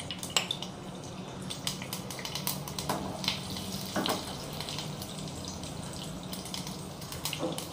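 Mustard seeds, urad dal and fenugreek seeds sizzling in hot oil in a small saucepan, with many scattered crackling pops.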